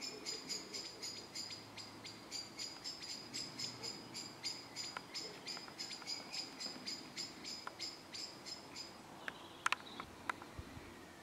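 A high chirp repeated steadily about four times a second, stopping about nine seconds in, followed by a few sharp clicks.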